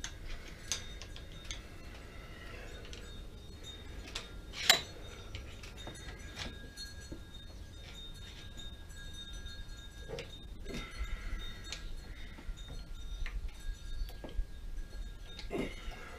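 Metal hand tools and lathe parts clinking and tapping now and then, with one sharp metallic clink about four and a half seconds in.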